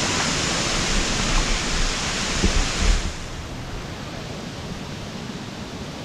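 Waterfall: a steady rush of falling water that suddenly turns quieter and duller about halfway through. A few low rumbles on the microphone come just before the drop.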